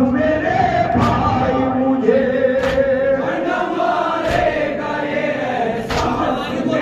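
Men chanting a Shia noha (Urdu mourning lament) together into microphones, with a sharp unison slap about every second and a half: mourners beating their chests (matam) in time with the lament.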